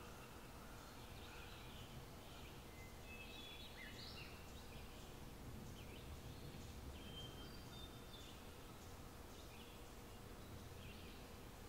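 Faint birdsong: scattered short high chirps and brief whistled notes over a steady low background noise.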